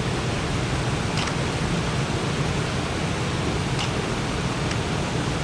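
Waterfall and river water rushing steadily, with the flow running high after days of rain.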